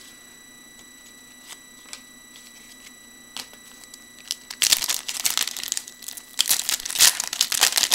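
Foil trading-card pack wrapper crinkling and tearing as it is opened, starting about halfway through after a few quiet seconds with faint ticks. A steady high-pitched whine from a PC fan sounds underneath.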